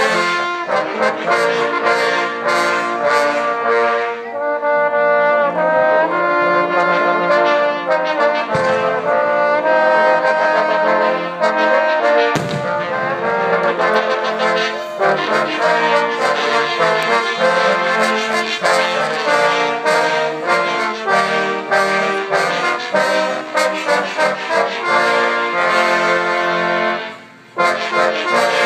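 Trombone choir playing a tune in harmony, many trombones sounding chords together. The music breaks off briefly near the end, then starts again.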